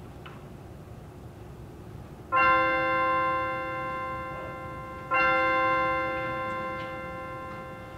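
Church bell tolled twice, about three seconds apart, each stroke ringing on and slowly fading, the tolling that opens the service.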